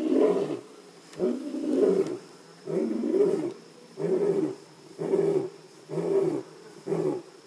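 Lion roaring: a run of deep grunts about one a second, the later ones shorter than the first.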